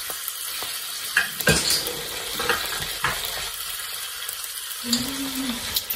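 Diced pork and onions frying in a pan: a steady sizzle, broken by a few light clicks.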